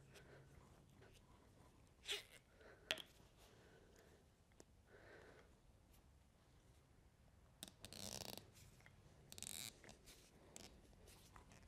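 Mostly quiet handling noises from tools and parts being worked by hand: a couple of sharp clicks or knocks about two and three seconds in, and two brief scraping rustles around eight and nine and a half seconds.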